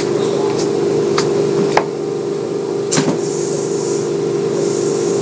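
Interior running sound of a Kintetsu 9200 series field-chopper-controlled electric train: a steady hum from the motors and gearing, with a few sharp clacks as the wheels pass over rail joints.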